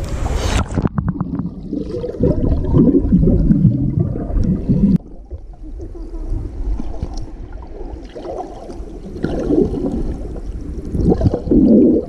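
Fast-flowing river water heard through a GoPro held underwater: a muffled gurgling rush with irregular bubbling knocks. The sound turns dull about half a second in as the camera goes under. It falls quieter for a few seconds past the middle and swells again near the end.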